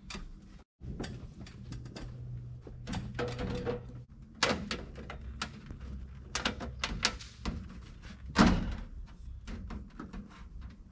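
Metal stovepipe sections knocking and clanking as they are handled and fitted together, in a string of separate knocks with the loudest about eight seconds in.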